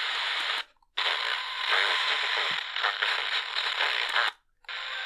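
Static hiss from the ICStation GY18971 FM radio kit's small speaker while it is tuned between stations with weak reception. The hiss cuts out twice for a moment, once near the start and once near the end, as the radio mutes while stepping to a new frequency.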